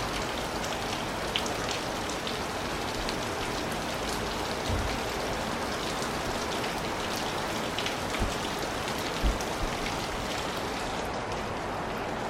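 Steady rain falling, with scattered sharp drop ticks and a few dull low thumps, the loudest about nine seconds in.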